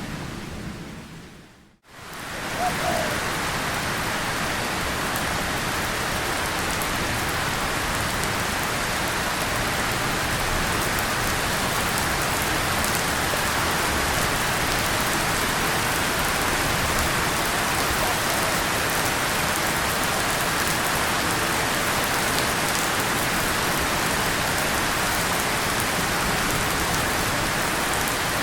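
Steady rain falling on tin and leaves, an even hiss. It fades out to near silence for a moment about two seconds in, then comes straight back and stays steady.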